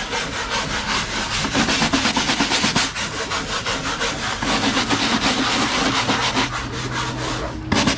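Hard-bristle hand scrub brush scrubbing textured fiberglass non-skid deck in quick, rhythmic scratching strokes, working acid rust remover in to lift embedded metal specks that leave rust stains.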